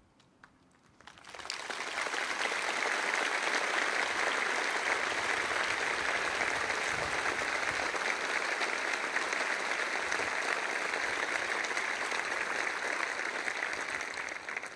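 Near silence for about a second, then a large crowd breaking into steady, sustained applause.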